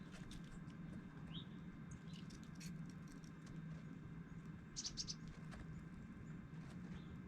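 Dark-eyed juncos giving sharp, high chip calls at scattered intervals, with a quick cluster of chips about five seconds in, over a steady low hum.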